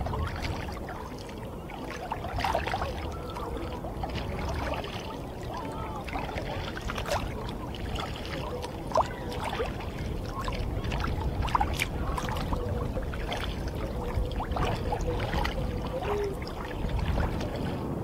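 Small waves lapping and splashing against a kayak's hull, with irregular drips and trickles of water, over a low wind rumble on the microphone.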